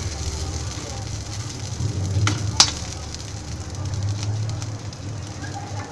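A spoon scraping and stirring fried rice out of a hot pan onto a plate, with a faint sizzle, over a low background hum. There are two sharp clinks of the spoon on the dish about two and a half seconds in.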